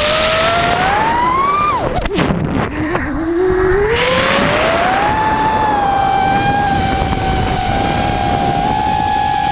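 A 5-inch FPV racing quadcopter's four EMAX RS2205 brushless motors spinning three-blade props, whining over a rush of wind. The whine climbs, drops steeply about two seconds in as the throttle is cut, sweeps back up over the next few seconds, then holds nearly steady.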